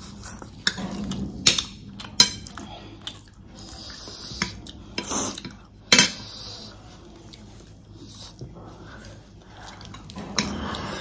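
Metal cutlery clinking against a plate during a meal, with a handful of sharp clinks scattered through and softer clatter between them.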